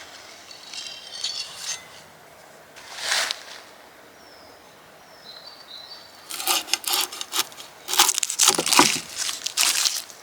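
Outdoor ambience with a few faint short chirps and brief swells of rustling. From a bit past halfway there is a quick, irregular run of knocks and scrapes, typical of handling utensils and food at a worktable.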